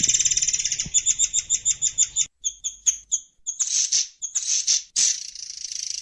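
Songbird calls, high-pitched: a run of quick, evenly spaced sharp notes, then a sudden break a little after two seconds, scattered chirps, and from about five seconds in a dense continuous trill.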